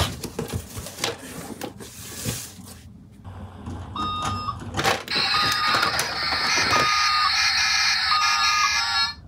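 Cardboard box flaps rustling and scraping as the box is opened. From about four seconds, a toy garbage truck's sound button plays an electronic beeping tune of short stepped tones.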